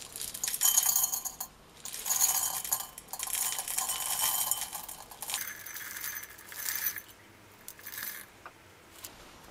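Potassium hydroxide flakes poured from a plastic bottle into a glass beaker, rattling and clinking against the glass in about five short pours with brief pauses between.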